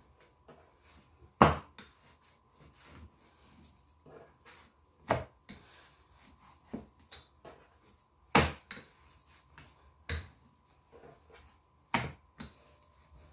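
Wooden rolling pin rolling out pizza dough on a hard countertop, with soft rolling and clicks between about five sharp knocks of the pin against the worktop, spaced two to four seconds apart.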